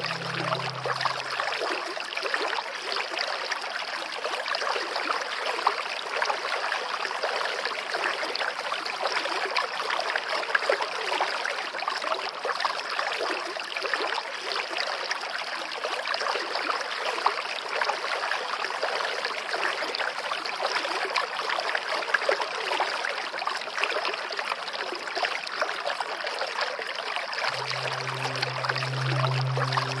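Shallow stream water rushing and splashing steadily over rocks. Soft music with low held notes fades out about a second in and comes back near the end.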